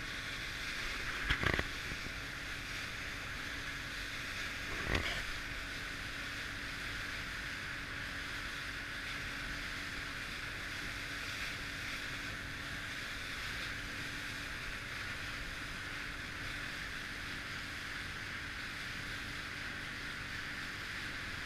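Steady rush of wind and water around a small motorboat under way on choppy open water, with a faint steady hum underneath. Two brief thumps stand out, about a second in and about five seconds in.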